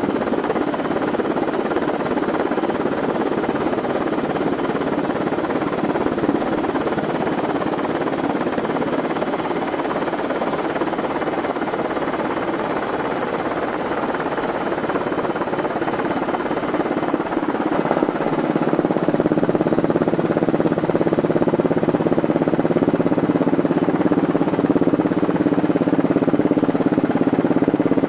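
Helicopter rotor and engine noise heard from on board: a steady, dense, fluttering drone. About two-thirds of the way through it grows slightly louder and a steady low hum comes in.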